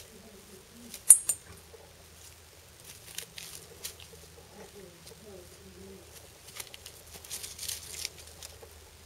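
Dry grass and twigs rustling and crackling as a cat paws at a dry stalk held out for it, with two sharp snaps about a second in and a longer stretch of crackling near the end.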